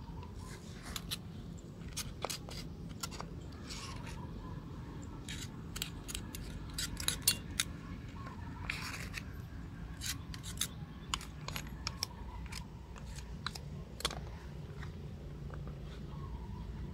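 Irregular sharp clicks and clacks of hard plastic and metal parts being handled as a plastic keyless drill chuck is fitted onto an old drill. The clicks bunch together in the middle, and the loudest comes a little past halfway.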